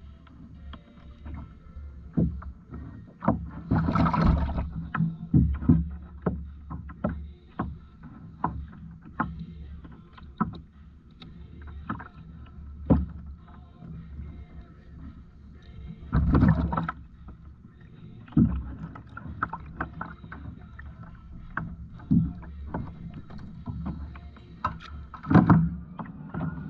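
Repeated knocks and bumps on a fishing kayak over a steady low rumble, with two longer, louder noisy stretches about four seconds and about sixteen seconds in.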